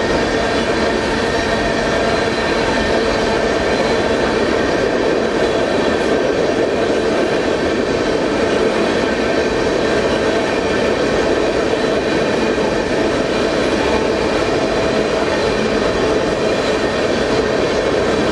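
Freight train tank cars rolling past close by: a steady rumble and rattle of steel wheels on rail, with faint steady ringing tones running through it.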